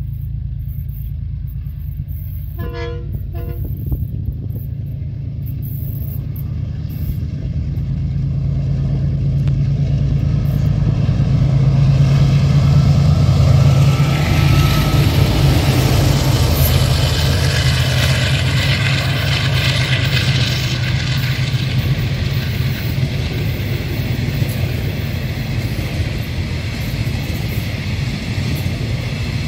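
Class 34 diesel-electric locomotive hauling a passenger train approaches and passes, its engine drone growing louder and loudest about halfway through. A short horn toot sounds about three seconds in. After the locomotive goes by, the rolling noise of the passing coaches takes over.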